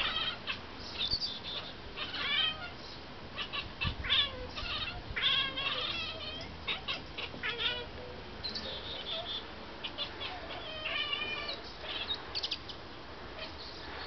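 House cats chirping and chattering at birds they are watching outside: many short, stuttered calls in quick runs, the hunting chatter of cats eyeing prey. The calls thin out after about eight seconds, with one more run around eleven seconds.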